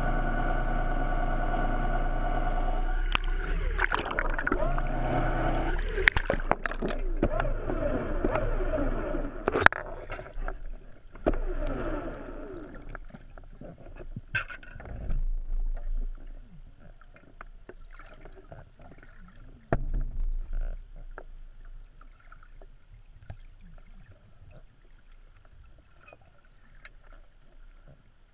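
Underwater sound picked up by a camera below the surface. A steady hum of even tones cuts off about three seconds in, giving way to gurgling, bubbling sounds with wavering pitch and scattered clicks. These grow fainter and sparser later on.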